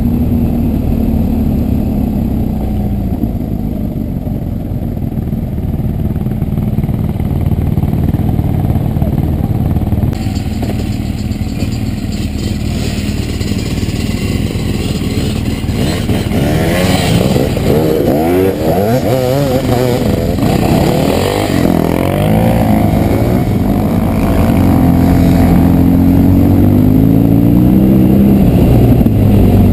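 BMW R1200 GS boxer-twin engine running under way on a dirt track, its revs rising and falling repeatedly with the throttle and gear changes, then climbing again near the end.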